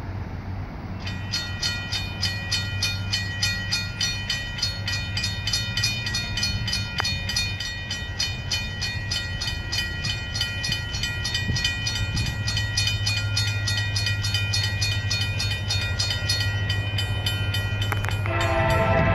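Railroad crossing bell ringing with rapid, even strokes as the crossing signals activate. About a second before the end, a CSX locomotive horn starts to sound as the coal train approaches the crossing.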